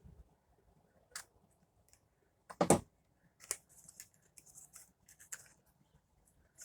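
Packaging being opened by hand: scattered light clicks and brief rustles, with one louder snap a little under three seconds in.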